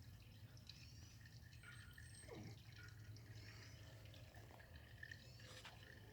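Faint birdsong: a few short, high chirping phrases a couple of seconds apart, over near silence.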